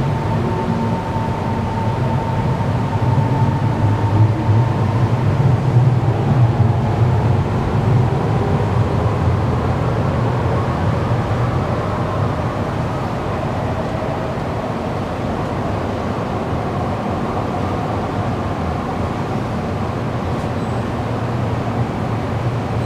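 Low, steady rumble on an underground MRT station platform behind closed platform screen doors. It swells for the first several seconds, with a faint whine that fades out after about three seconds, then settles into an even hum.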